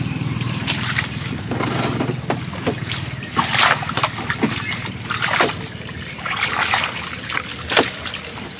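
Water splashing and trickling in irregular bursts, with a few sharper splashes, as a fish trap is handled and emptied in the water, over a low steady hum.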